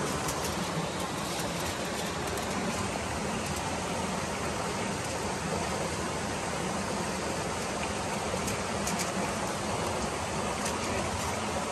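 Steady rush of a waterfall and river, with a few light crinkles of aluminium foil being handled.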